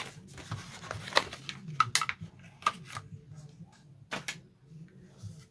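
Plastic packaging of a pair of toy little hands being opened and handled: rustling at first, then a series of sharp clicks and taps, with two close together about four seconds in.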